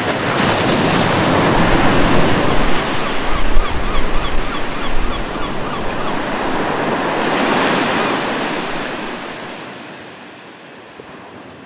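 Sea surf washing on a beach, swelling twice and then fading out toward the end. A short run of quick chirps is heard in the middle.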